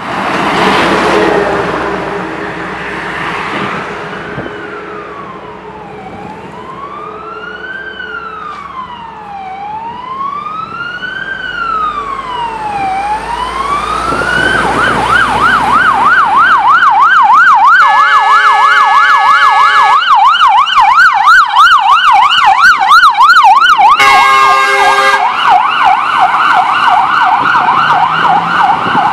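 Fire engine siren on a Scania heavy fire tender: a slow rising-and-falling wail that switches about halfway through to a fast warbling yelp, growing louder as the truck approaches. The horn sounds twice over the yelp, a blast of about two seconds and a shorter one some four seconds later, and a passing car is heard at the start.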